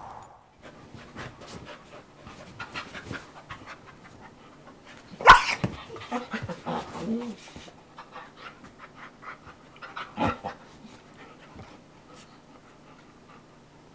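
A German Shepherd and a Brittany Spaniel/cattle dog mix play-fighting, scuffling and panting. A loud, sharp vocal burst comes about five seconds in, and a second one about ten seconds in.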